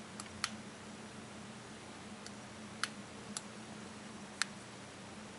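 Push button of a cheap green laser pointer clicking on and off, about six sharp, irregularly spaced clicks. A faint steady low hum runs underneath.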